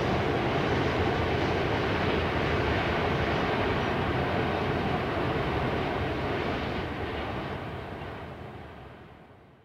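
Container freight train rolling across a high rail viaduct: a steady rumble of wheels and wagons that fades away over the last few seconds as the train's tail draws off.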